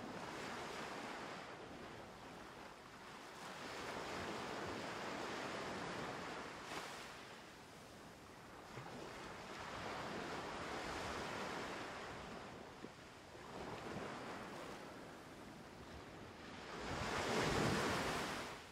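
Sea waves washing in and drawing back, the noise swelling and fading every few seconds, with the largest surge near the end.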